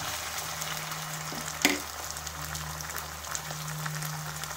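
Chopped tomatoes and onions sizzling in hot oil in a nonstick kadai while a spatula stirs them. There is one sharp knock about one and a half seconds in, and a steady low hum underneath.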